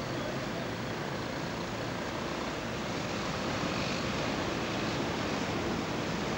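Steady drone of small fishing boats' outboard motors on the water, mixed with a continuous wash of surf.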